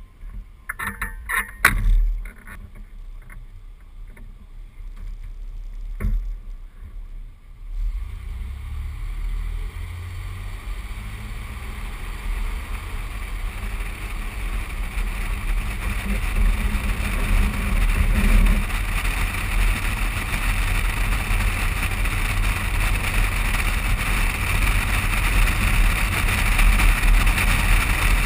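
Wind and tyre noise from a pickup truck driving on pavement, picked up by a camera mounted low on the outside of the truck. There are a few sharp knocks in the first two seconds. From about eight seconds in, a steady rushing noise with a low rumble grows louder as the truck gathers speed.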